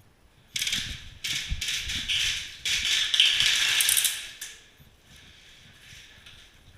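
Airsoft gun firing several bursts of rapid clicking shots over about four seconds, the last burst the longest.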